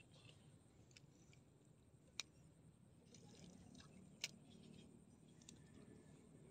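Near silence with two short sharp clicks, about two seconds in and about four seconds in, and a few fainter ticks.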